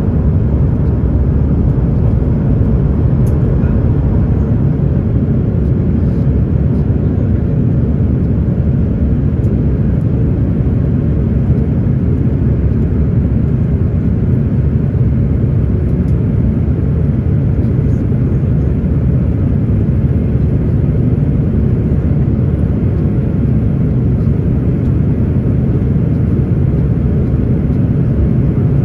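Steady low cabin drone of an Airbus A330-900neo in the climb after takeoff: its Rolls-Royce Trent 7000 engines and the rushing air, heard from a window seat inside the cabin.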